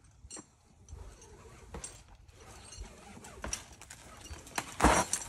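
Boots stepping and scuffing on a rock face during a rappel, irregular scrapes and light clicks of gear, with one louder scuff just before the end.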